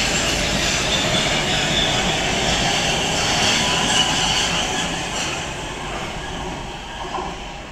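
Oslo metro train running past on the rails, its wheels giving a high squeal. The noise fades steadily over the last few seconds as the train leaves.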